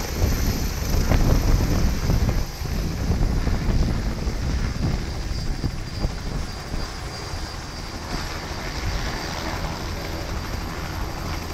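Helicopter taking off and climbing away, its rotor and engine rumble loud at first and slowly fading as it leaves. A steady high whine runs underneath.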